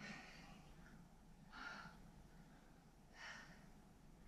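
Faint breathing: three short exhales about a second and a half apart, a person breathing out while holding a plank.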